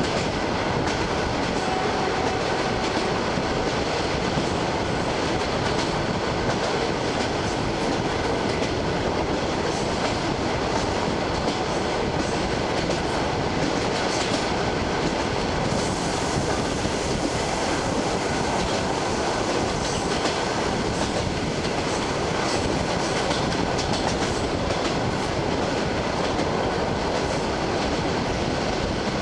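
ED9M electric multiple unit running at speed, heard from inside the carriage: a steady rumble of the wheels on the rails with the clickety-clack of wheels over rail joints.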